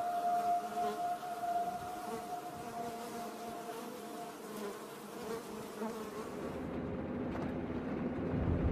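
Honeybee colony humming on an open hive's comb, a steady buzz of many bees. Near the end the buzz gives way to the low rumble of a car driving.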